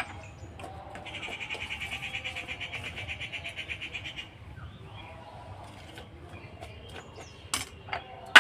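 An animal call with a rapid quaver, about three seconds long, starting about a second in. Near the end come two sharp clinks of a spoon on the steel mixing bowl.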